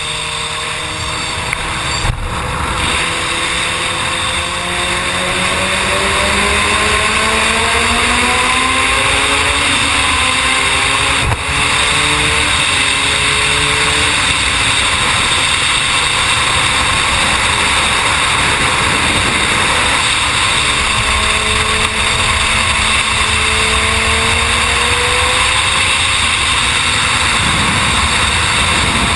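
Suzuki sport motorcycle engine pulling hard at speed under heavy wind rush. The engine note rises over the first ten seconds or so, holds, and climbs again about twenty seconds in.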